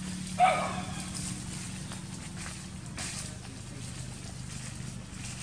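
A short high call about half a second in, over a steady low hum, with a few faint clicks.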